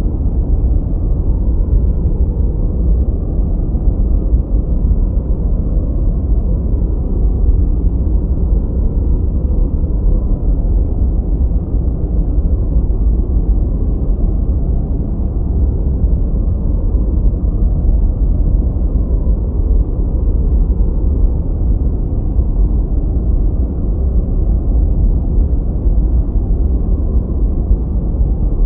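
Steady, unchanging noise track of the kind sold as white noise for study or sleep. It is deep and muffled, a low rushing rumble with almost no hiss, and no single event stands out.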